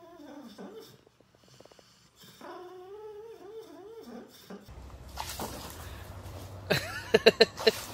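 A sleeping dog whining in its sleep: a long wavering cry that trails off, then after a short pause a second wavering cry. Near the end, outdoors, a dog gives a quick run of four short sharp barks.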